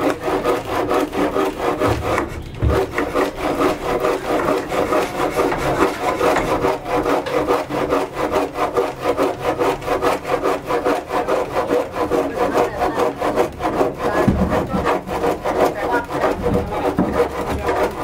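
Hand saw cutting through a wooden board with quick, even back-and-forth strokes.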